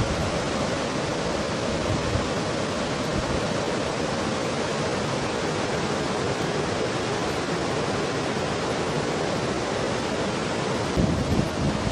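Steady rush of fast-flowing mountain stream water. Near the end, gusts of wind buffet the microphone with an uneven low rumble.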